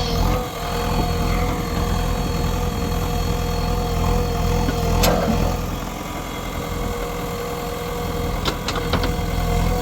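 Heavy diesel engine of earthmoving machinery running steadily at a low, even speed, with a high steady whine over it. There is a sharp knock about five seconds in and a few short clicks near the end.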